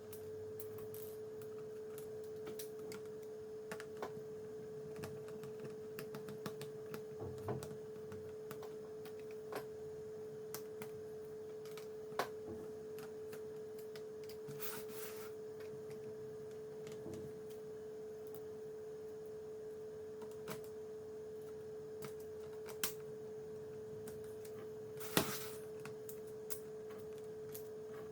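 A steady, fairly high pure tone, with no change in pitch, sets in at the start and holds. Small scattered clicks and taps sound over it as a laptop's plastic case and screws are handled during reassembly.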